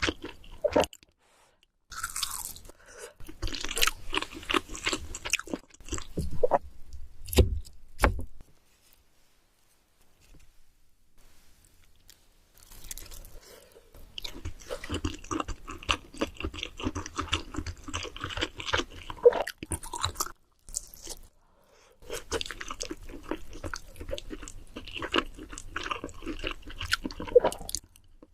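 Close-miked chewing of a mouthful of instant noodles: long runs of rapid, wet clicking and crackling mouth sounds, broken by a pause of a few seconds about a third of the way in and a short one about three quarters of the way through.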